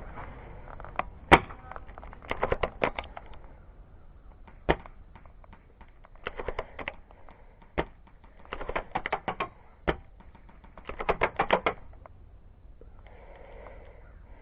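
Airsoft rifle firing: single sharp shots alternate with four short rapid bursts of quick clicking shots.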